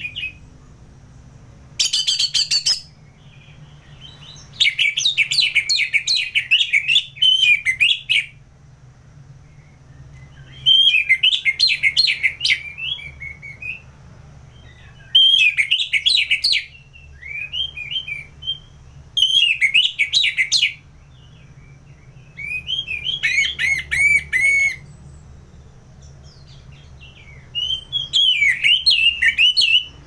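Orange-headed thrush singing: loud bouts of rapid, varied whistled notes lasting one to three seconds each, about seven bouts with short pauses between them.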